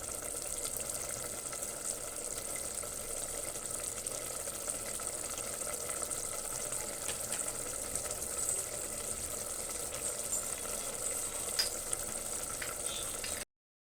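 Gongura (sorrel leaf), onion and tamarind mixture simmering in a pot on a low flame, a steady sizzle with a few faint clicks; it cuts off suddenly near the end.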